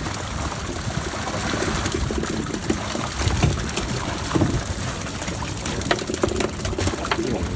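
Water streaming and dripping off a cast net full of live baitfish, with the fish flapping and slapping on the boat deck in many quick, irregular taps.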